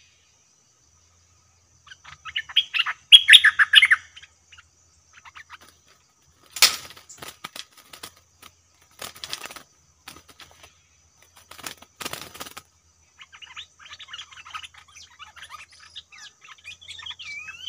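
Bulbuls chirping, with a loud song phrase about two seconds in and softer chattering calls near the end. In between come three short fluttering bursts, as a bird flaps its wings at a trap cage.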